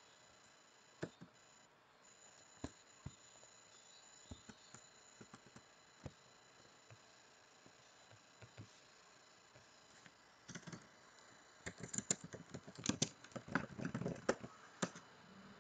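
A few scattered computer mouse clicks, then a quick run of keyboard typing over the last five seconds.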